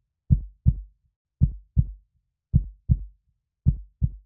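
Heartbeat sound effect: a double lub-dub thump about once a second, four beats in all, with dead silence between them.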